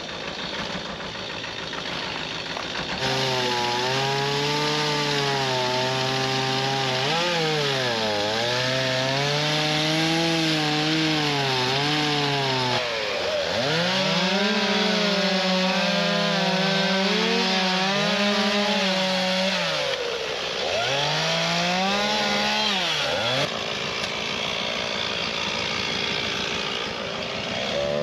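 Chainsaw throttled up about three seconds in and cutting wood for some twenty seconds, its engine note sagging and recovering several times as the cut loads it, then dropping back to a low run near the end.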